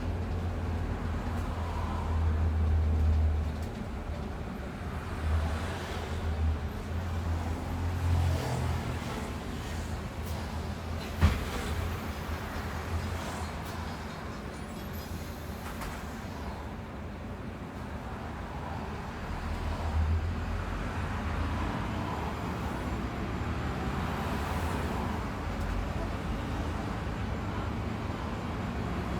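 Bus interior while the bus is driving: a steady low engine and road rumble that swells and eases several times, with a single sharp knock about a third of the way through.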